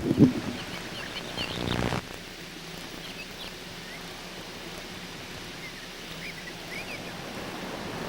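Outdoor background with a steady hiss and scattered short, high bird chirps. The first two seconds are louder and busier, then the sound drops suddenly to the quieter hiss.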